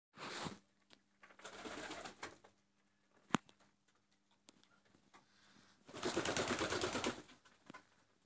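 Flock of Silesian Shield pigeons: a faint low cooing under three bursts of wing flapping, the loudest and longest about six seconds in, and one sharp click near the middle.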